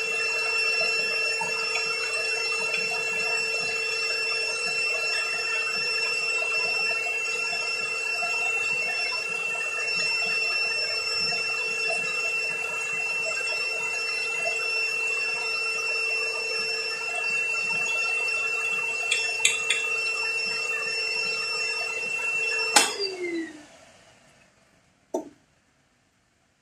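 Wet/dry shop vacuum running with a steady whine while its hose works over metal parts, with a few light clicks. Near the end it is switched off with a click and the motor whine falls in pitch as it spins down, followed by a short knock.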